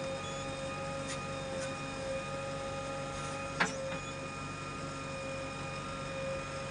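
JCB 3DX backhoe loader's diesel engine and hydraulics running steadily with a constant whine. There is one sharp knock about three and a half seconds in.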